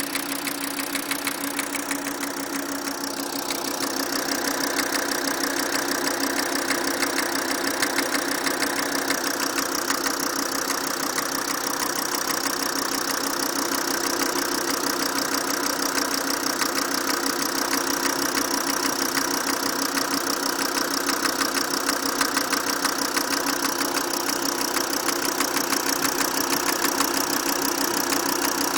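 Volkswagen Crafter's 2.5 TDI five-cylinder diesel engine running at a steady speed with a rapid, even knock mixed into the engine clatter: the knock is the fault being recorded.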